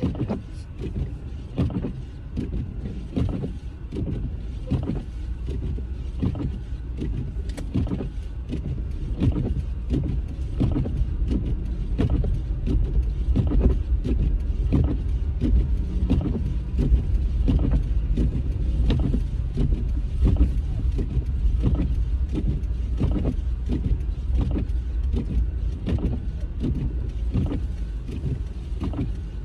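Car driving on a snow-covered road, heard from inside the cabin: a steady low rumble of engine and tyres, with many short knocks and clicks throughout.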